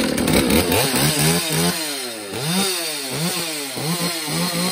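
Holzforma G444 two-stroke chainsaw, a Chinese clone of the Stihl 044, just pull-started with the choke on and running, its throttle blipped over and over so the engine note drops and climbs about twice a second.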